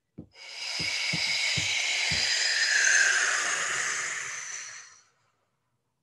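A woman's long, forceful exhale blown out through the mouth, a breathy rush that swells and then fades away, stopping about five seconds in.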